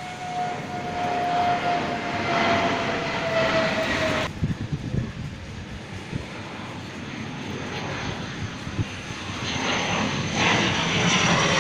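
Fighter jet engines roaring overhead as the jets fly past. For the first four seconds a whine rides on the roar and slowly drops in pitch. About four seconds in the sound cuts abruptly to a lower, uneven rumble, which swells again into a loud roar with a high whine near the end.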